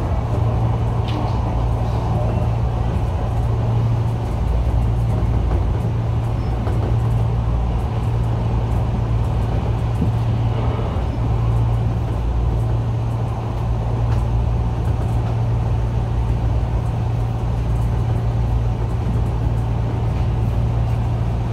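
Enshu Railway 2000 series electric train running at speed, heard from inside the front car: a steady low hum with wheel-on-rail running noise.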